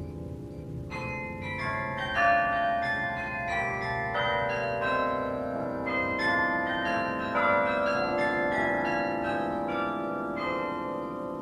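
Carillon bells playing a melodic fragment over the minor-key progression Am7–Dm7–G7–Cmaj7, one struck note after another with each bell ringing on under the next; a new run of notes starts about a second in.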